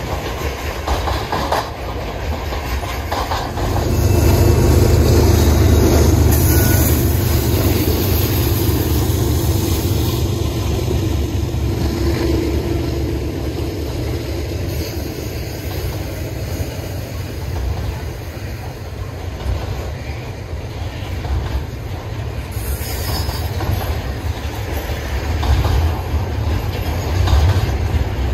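Freight train of tank cars and double-stack container well cars rolling past close by: a steady, heavy rumble of wheels on the rails that grows louder about four seconds in.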